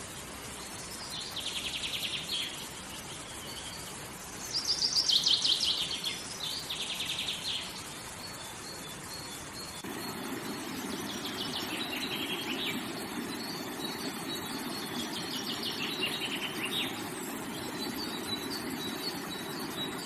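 Songbirds singing in short, rapid high trills over the steady rush of a rocky stream. About halfway through, the water sound becomes louder and deeper.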